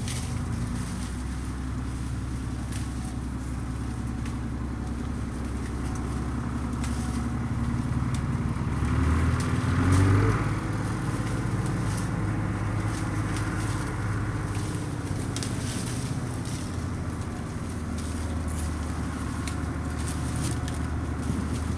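An engine running steadily, rising briefly in pitch and level about nine to ten seconds in before settling back, with faint scattered clicks and rustles over it.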